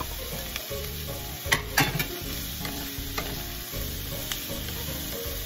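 Diced carrots and potatoes sizzling in oil in a frying pan while a wooden spatula stirs them, with scattered scrapes and two sharp knocks of the spatula about a second and a half in.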